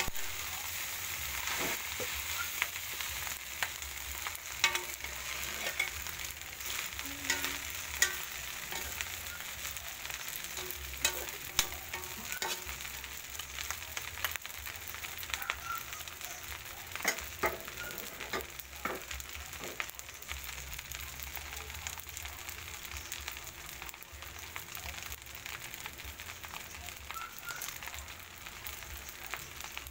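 Garlic fried rice sizzling in a wok while a spatula turns and scrapes it, with sharp clacks of the spatula against the pan. The clacks thin out after about twenty seconds while the steady sizzle carries on.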